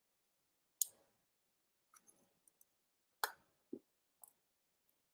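A handful of sharp, irregular clicks and one duller knock over silence; the loudest click comes about a second in and another just after three seconds.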